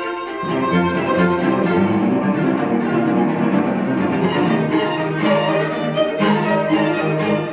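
String quartet playing live: violins and cello bowing layered sustained notes, with several sharp accented strokes in the second half.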